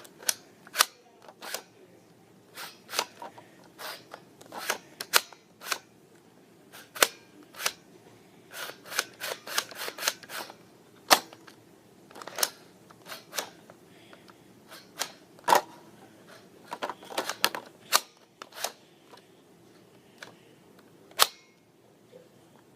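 Sharp plastic clicks and snaps at an irregular pace from the toy gymnast beam being slid back and handled.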